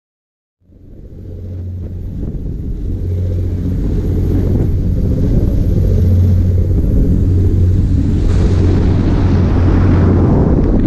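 Ferry under way: a steady low drone from its twin Yuchai YC6T540C six-cylinder marine diesels running at 1,800 rpm, mixed with wind on the microphone and rushing wake water. The sound fades in about half a second in, and the hiss of wind and water grows louder from about eight seconds in.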